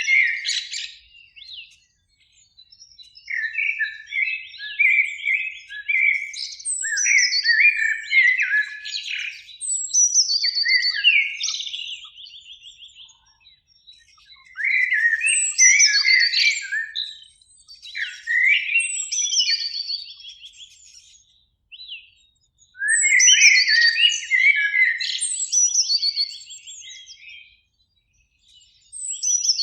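Eurasian blackbird singing: warbled phrases, each running up into higher, squeakier notes, repeated in bouts of a few seconds with short pauses between them.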